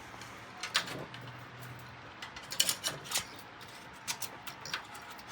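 Irregular sharp clicks and light taps from PC parts and cables being handled and fitted by hand, about half a dozen spread over a few seconds.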